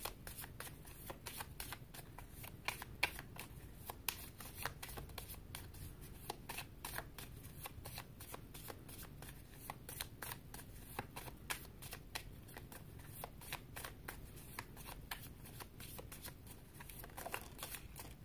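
A deck of reading cards being shuffled by hand: a continuous, irregular run of soft, quick card clicks.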